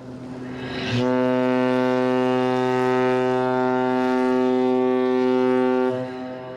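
A ship's horn sounding one long, steady blast. It starts about a second in and lasts about five seconds.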